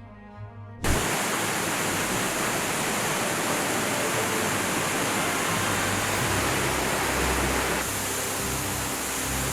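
Soft bowed-string music, cut off abruptly about a second in by a loud, steady rushing noise with no distinct events in it.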